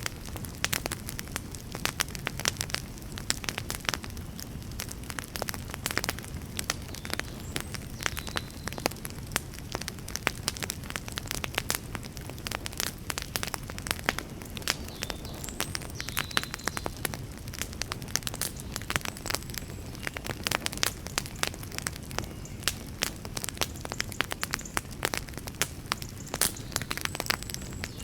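Wood fire burning, with dense, irregular crackles and pops of burning logs over a steady low rumble of the flames.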